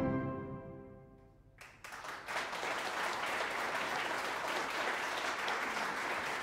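A fanfare band of brass and saxophones ends on a held chord that fades out within the first second. After a brief silence, the audience breaks into steady applause about two seconds in.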